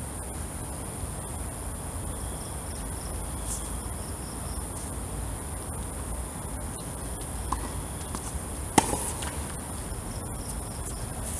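Steady high-pitched chirring of crickets or other insects. About nine seconds in, a single sharp crack of a tennis ball struck by a racket, with a fainter knock shortly before it.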